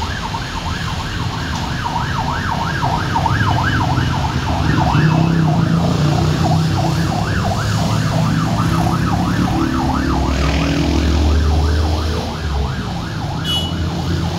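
Ambulance siren on a fast yelp, its pitch sweeping up and down about three times a second, over the low, steady rumble of road traffic. The siren fades near the end.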